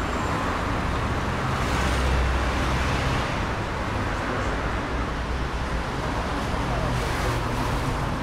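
City street traffic: cars running past with a steady mix of engine hum and tyre noise, swelling as vehicles pass closer about two seconds in and again near the end.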